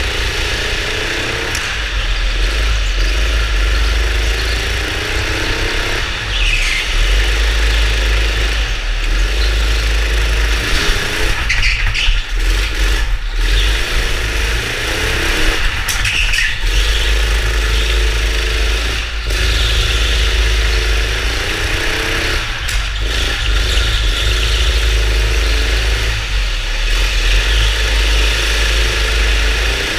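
Go-kart engine heard from on board, revving up again and again as it accelerates and dropping back between, over a heavy low rumble. A few brief high squeals come and go.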